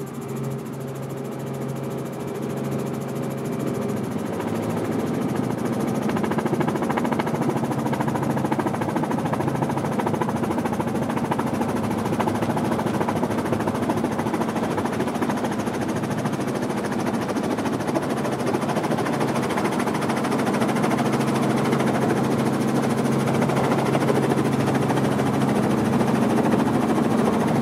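Helicopter engine and rotor running, growing louder over the first several seconds and then holding a steady, even drone.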